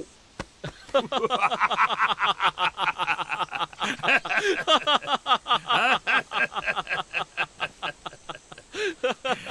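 Men laughing together at a joke: a long run of quick 'ha' pulses that starts about a second in and dies away near the end.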